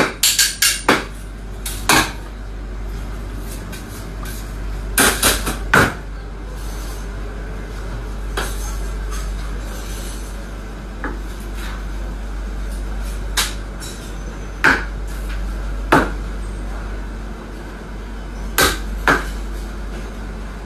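Sharp clinks and knocks of a kitchen knife: a quick run of strikes at the start, another cluster about five seconds in, then single knocks every second or two as the knife cuts a steak on a plastic cutting board. Under them runs a steady low hum.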